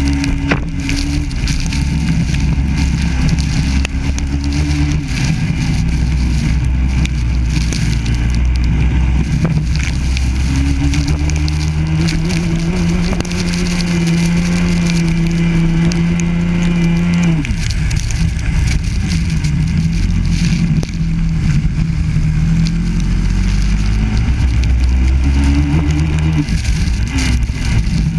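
Biland SA250 kart's four-stroke engine heard onboard, its revs rising and falling through corners. About twelve seconds in it holds a steady high note for about five seconds on a straight, then drops sharply as the throttle comes off. A steady hiss of spray and wind runs underneath.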